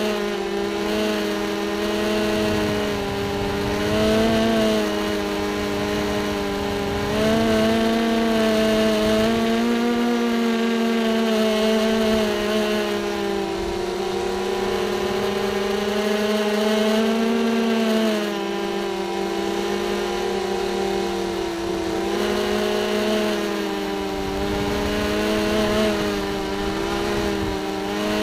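FPV racing quadcopter's brushless motors and propellers whining, heard on board. The pitch keeps rising and falling with the throttle.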